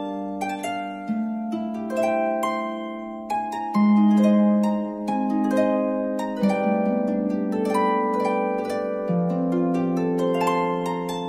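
Background music: a gentle melody of plucked, harp-like string notes over held low notes.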